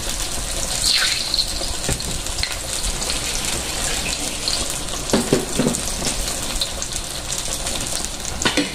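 Chicken pieces frying in hot oil in a wok, sizzling steadily, with a few brief louder crackles.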